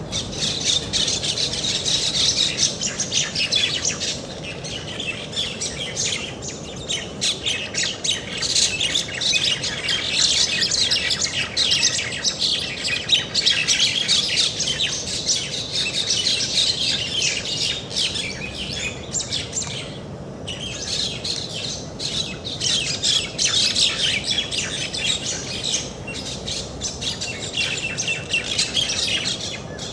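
Many small birds chirping and twittering together in a dense, continuous chorus, with a brief lull about twenty seconds in, over a steady low background hiss.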